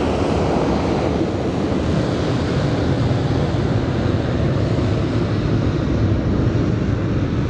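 Jet airliner's engines running steadily as it taxis across the airfield, a constant low noise heard from a distance, with wind on the microphone.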